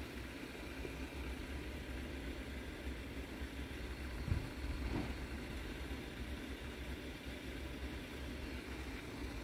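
Steady low rumble of a road vehicle's engine idling, with two brief soft knocks about four and five seconds in.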